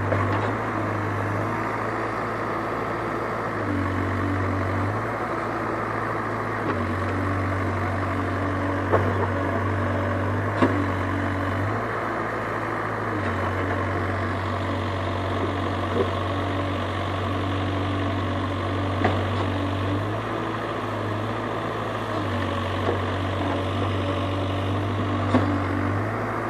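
Excavator's diesel engine running steadily, its low note stepping up and down every few seconds, with a few short sharp knocks.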